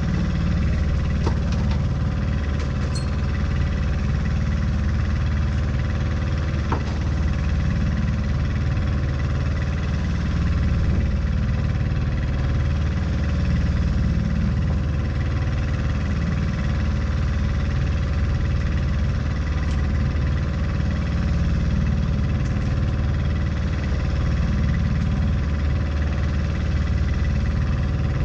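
Fishing boat's engine running steadily: a low, even drone with a few light clicks near the start.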